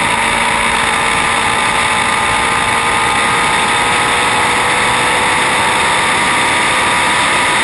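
Indy Lights race car's V8 engine running flat out at a steady pitch, under a dense, even rush of noise.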